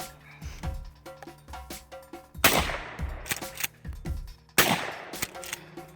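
Two 12-gauge shotgun blasts from a Mossberg 500 pump-action, about two seconds apart, each with a ringing tail, over background music.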